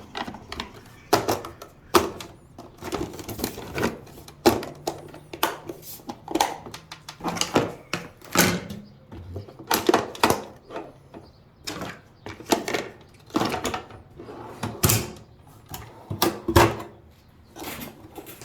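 Hand tools and small items clattering and knocking against each other and the box as they are picked up and moved around in a toolbox: a long run of sharp clicks and knocks, often about a second apart.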